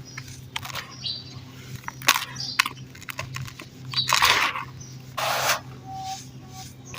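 Crumbling dry dirt crunching in a series of short, sharp crunches, with a longer crunch about four seconds in and a dense burst of crumbling about five seconds in.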